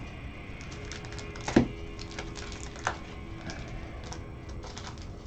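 Trading cards and rigid plastic card holders handled by gloved hands: scattered light clicks and taps, with a sharper knock about a second and a half in and another near three seconds.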